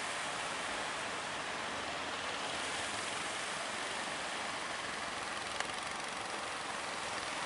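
Steady rushing noise of surf breaking and churning water at a harbour mouth, with one short click about five and a half seconds in.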